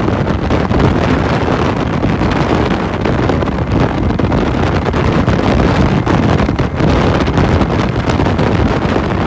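Heavy wind buffeting the microphone of a Lifan Lycan V16 twin-cylinder motorcycle at highway speed, with engine and road noise underneath.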